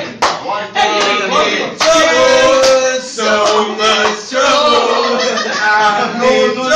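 A man singing with long, held notes, and laughter around him. A short sharp smack comes just at the start.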